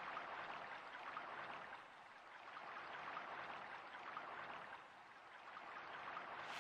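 Faint, steady hiss like rain or running water, swelling and dipping a little in loudness.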